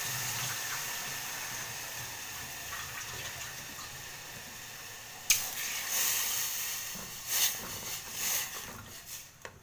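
Water being poured into a pot of butter-fried pasta on the stove, a steady watery noise that slowly fades. About five seconds in comes a sharp click, then a few softer knocks.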